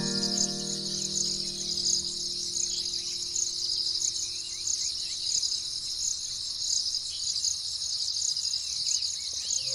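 Dense insect chorus: a steady, shrill, pulsing trill high in pitch. The sustained notes of a music chord die away during the first few seconds.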